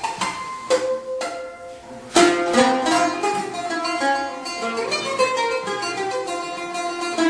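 Solo oud, plucked: a few separate ringing notes, a strongly struck accent about two seconds in, then a quick run of notes.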